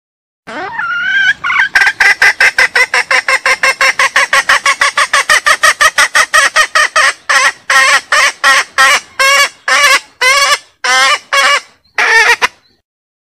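Junglefowl hen calling: it opens with a rising note, then gives a fast run of repeated cackling notes, about five a second, which slows to spaced single notes near the end. It is a hen's mating call in breeding condition, summoning a rooster.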